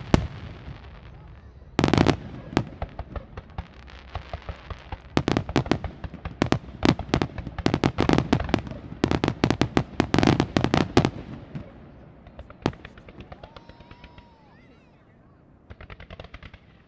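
Aerial firework shells bursting. A heavy bang about two seconds in is followed by a dense run of rapid bangs and crackling lasting about six seconds. Then it thins out, and a short burst of crackling comes near the end.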